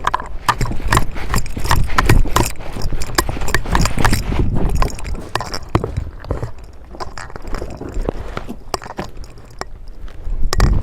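Quick footsteps crunching and rustling over the ground as a player moves forward, with dense irregular clicks and thuds. The thuds are heaviest in the first half and lighten after about six seconds.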